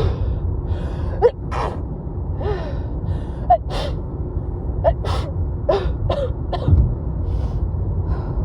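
A woman's wet sneezing fit: a string of short, catching gasps as each sneeze builds, broken by several harsh, sudden sneezes.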